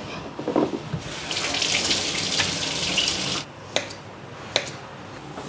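Kitchen tap running into the sink for about two seconds, then shut off. Then a knife slicing through a peeled white root vegetable on a stainless-steel counter, with sharp clicks a little under a second apart.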